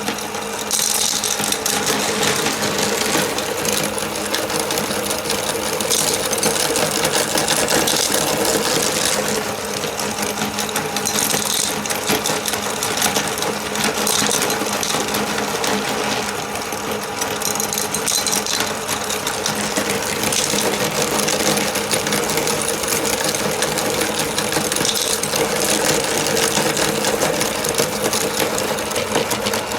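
Electric meat grinder's motor running steadily with a constant hum while it grinds M&M candies, with gritty crackling from the hard candy being crushed that swells and fades every few seconds.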